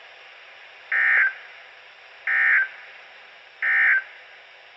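Emergency Alert System SAME digital data bursts from NOAA Weather Radio: three short, identical screeching bursts about 1.3 seconds apart, the end-of-message code that closes the tornado watch alert. Faint radio hiss between them.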